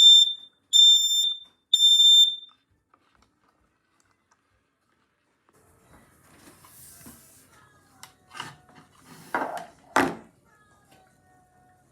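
Kidde smoke alarm sounding its loud, high-pitched fire beeps in a three-beep pattern: the end of one beep and two more, stopping about two and a half seconds in. Several seconds later come a few faint clicks and two louder knocks.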